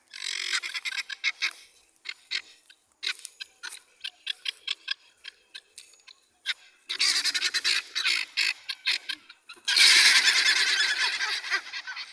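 A flock of birds squawking, many short calls overlapping, swelling into a dense chorus twice, about seven seconds in and again near the end.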